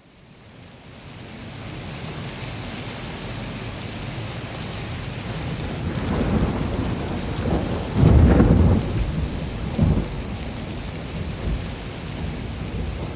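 Rain and thunder: steady rain fades in, with a few rolls of thunder past the middle, the longest and loudest about two-thirds of the way through.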